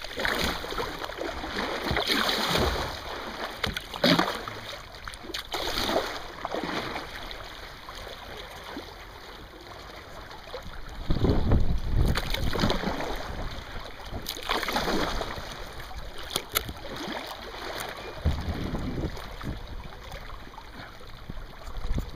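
Shallow sea water sloshing and lapping against rocks beside a kayak, with splashes about every two seconds at first, then quieter lapping. Wind buffets the microphone in low rumbling gusts several times in the second half.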